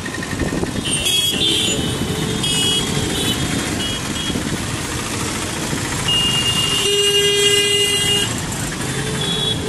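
Congested street traffic: a steady rumble of engines with several short horn toots, then one long horn blast of about two seconds starting about six seconds in.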